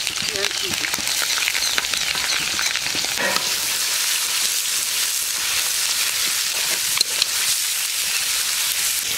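Sliced red onions sizzling steadily in hot oil in a steel kadai, stirred with a flat metal spatula that scrapes and clicks against the pan, with one sharp knock about seven seconds in.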